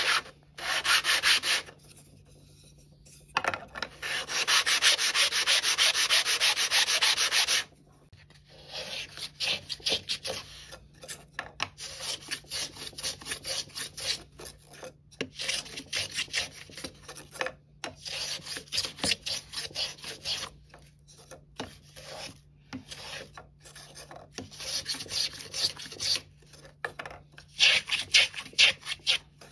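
A laminated wooden kayak cockpit hoop rubbed back and forth by hand on a board faced with sandpaper, in steady sanding with a short pause about two seconds in. From about eight seconds on come many short, choppy strokes of a small hand plane shaving the hoop's edge.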